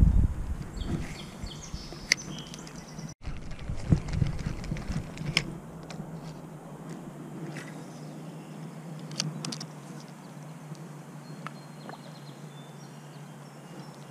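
Steady outdoor background of river water and wind noise, with scattered small clicks and knocks from handling a spinning rod and reel and a few faint bird chirps near the end.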